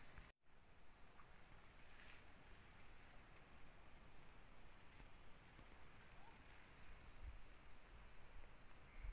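Steady high-pitched chorus of night insects in the forest. It drops out for a moment about half a second in and fades back.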